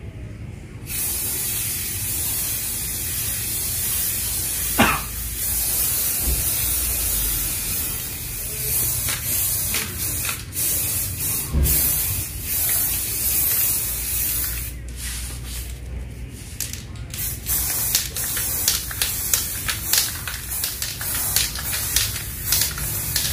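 Aerosol spray can of Elasti Dip rubberized coating hissing as it is sprayed. It starts about a second in and runs as one long spray with a few short breaks in the middle, then turns into many short spurts near the end.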